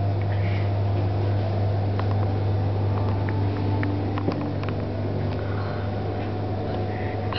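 Steady low mechanical hum, with a few faint clicks scattered through it.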